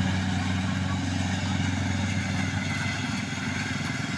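A nearby engine running steadily with a fast, even putter; a stronger steady hum fades out about a second in.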